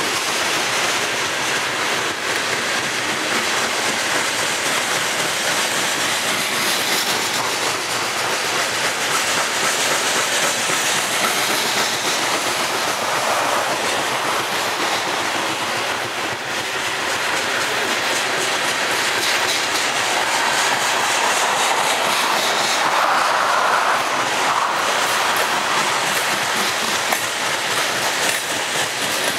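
Loaded coal train's hopper cars rolling steadily past, their steel wheels clacking over the rail joints.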